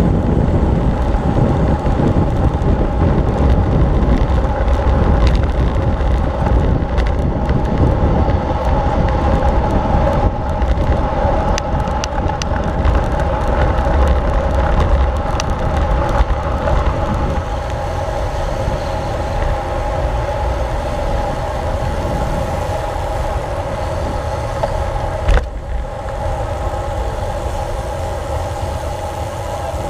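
Wind buffeting the microphone and tyre noise from a road bicycle riding at speed, with a steady hum and a few sharp knocks, the loudest about 25 seconds in.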